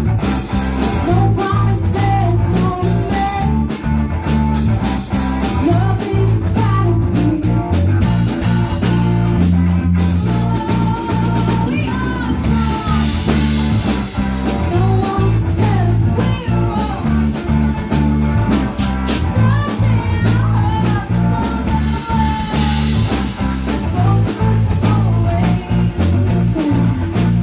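Live rock band playing: electric guitar lead line over bass and drum kit, loud and steady.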